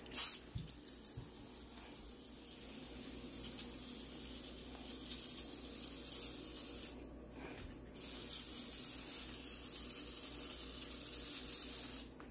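Aerosol can of heavy-duty oven cleaner hissing as it sprays foam onto a glass stovetop. The spray runs in long stretches, with a pause of about a second around seven seconds in and another near the end.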